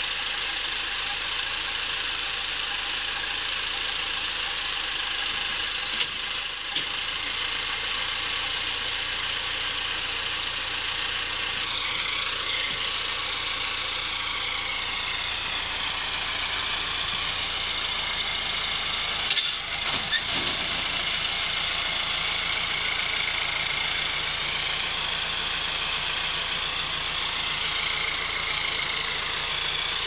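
Massey Ferguson 4235 tractor working with a Taarup forage harvester harvesting silage: a steady machine drone with a high whirr. There are a few brief knocks about six seconds in and again around nineteen to twenty seconds.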